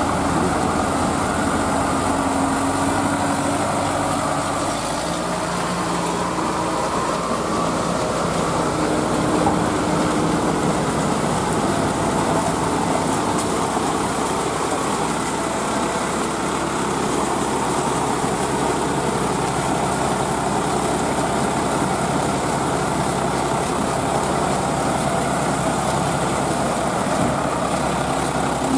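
Diesel tractor engines running steadily as the tractors haul a loaded trolley through deep mud, with the engine note shifting a little in the first few seconds.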